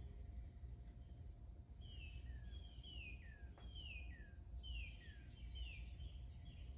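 A bird singing a run of quick whistled notes, each falling sharply in pitch, about two a second, starting about two seconds in, over a faint steady low hum.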